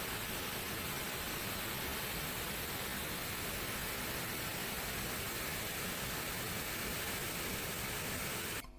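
Waterfall: a steady, even rushing hiss of falling water, cutting off abruptly near the end.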